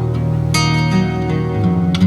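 Background music led by acoustic guitar, plucked notes ringing over sustained low tones.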